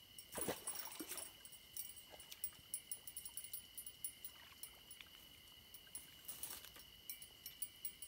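Scattered rustles and knocks of an angler handling a fishing rod among dry reeds and grass while setting into a fish, the loudest in the first second and again around six seconds in, over a steady high chirring of night insects.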